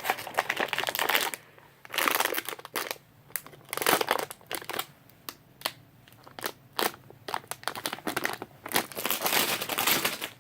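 Blind-box packaging crinkling and crackling in irregular bursts as it is handled and opened, with sharp clicks throughout.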